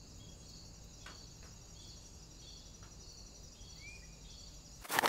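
Faint, steady, high-pitched insect chirring with a brief rising bird-like chirp about four seconds in. A loud noise breaks in suddenly near the end.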